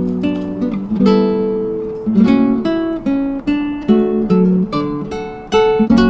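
Background music on acoustic guitar: a steady run of plucked notes and chords, each ringing and fading.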